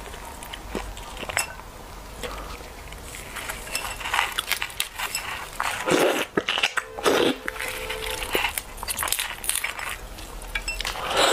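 Close-miked mouth and shell sounds of raw red shrimp being peeled and eaten: small crackles and clicks of shell and wet chewing and sucking, with louder bursts around six and seven seconds in.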